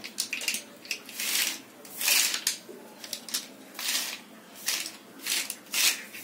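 Plastic alphabet letters being rummaged and pushed around by hand on a plastic mat: a string of short rustling clatters, roughly one a second.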